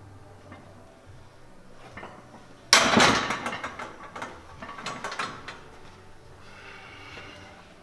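Loaded barbell racked onto the bench-press uprights: a sudden loud metal clank about two and a half seconds in, followed by a couple of seconds of rattling from the bar and plates.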